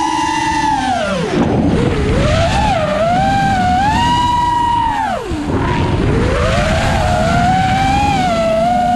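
Turnigy 2205 2300KV brushless motors and three-blade propellers of an FPV quadcopter whining, the pitch rising and falling with the throttle and dropping sharply twice as the throttle is chopped, heard from the GoPro on board with air rushing past.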